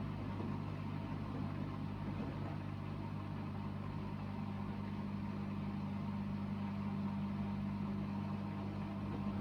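Hoover VHD 9163 ZI washing machine in its final spin: the motor and drum run with a steady hum whose low tone grows a little stronger in the second half.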